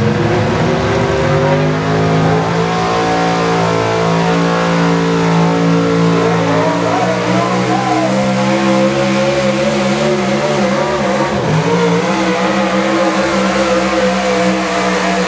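Four-wheel-drive pickup truck's engine running hard at high revs under full load, pulling a weight-transfer sled. The pitch holds mostly steady with small dips.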